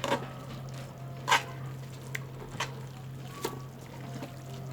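A cooking utensil knocks against a pot a few times as noodles are stirred in broth, the loudest knock just over a second in, over a steady low hum.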